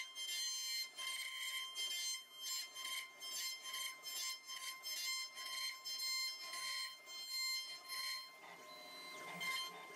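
CNC router spindle with an end-mill bit cutting a relief into a wooden panel. It gives a steady high whine with cutting noise that swells and fades about twice a second.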